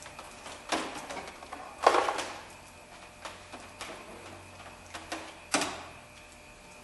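Scattered clicks and knocks of tools and parts being handled during work on the fuel injector wiring, the sharpest about two seconds in and another near the end.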